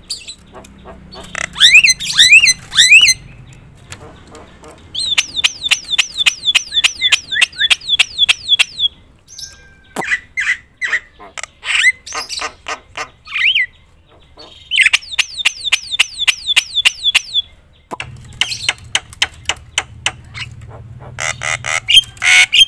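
Javan myna (jalak kebo) singing loudly and continuously: fast runs of sharp, harsh notes mixed with repeated falling whistles. The song comes in several bursts with short pauses between them.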